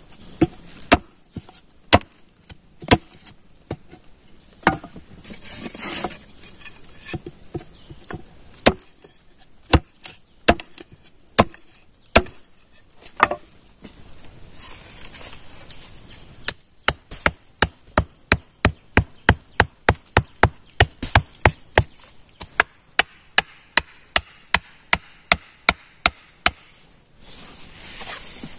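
Wood being chopped with a blade, sharp strokes at first spaced about a second apart, then a fast steady run of about two or three strokes a second through most of the second half.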